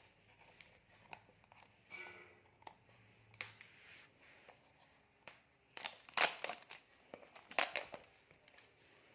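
Smartwatch retail box being opened by hand: scattered rustles, scrapes and light clicks of the cardboard and packing, with two louder flurries about six and seven and a half seconds in.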